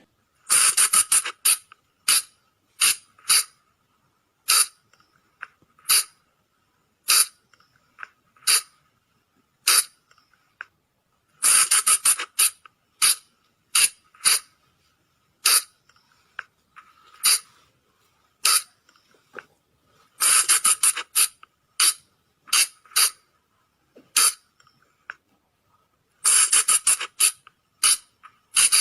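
Sunda flying lemur (colugo) calls: short, shrill squeaks, single ones about every second, broken every several seconds by a rapid run of squeaks. A faint steady thin tone sits underneath.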